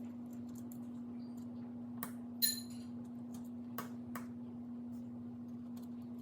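A few sharp little plastic clicks from a small screwdriver prying and popping the plastic buttons of a BMW E39 HVAC button panel, the loudest about two and a half seconds in, over a steady low hum.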